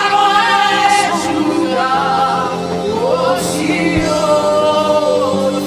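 Gospel worship singing: a woman's voice holding long, wavering notes over a steady sustained accompaniment.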